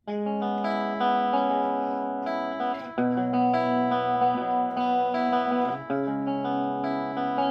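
Guitar played through a Palco PAL104-USB amplifier: held chords that start suddenly and change about every three seconds.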